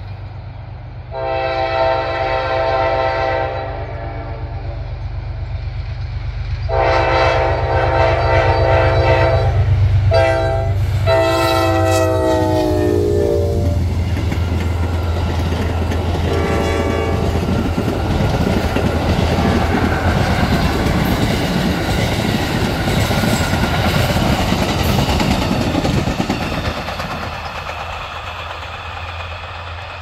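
Horn of an Amtrak GE P32-8BWH diesel locomotive sounding the grade-crossing signal in long, long, short, long blasts, then one more short blast, its pitch dropping as the locomotive passes close by. Under it the diesel engine rumbles, then the wheels of the passenger cars clatter steadily past on the rails before fading near the end.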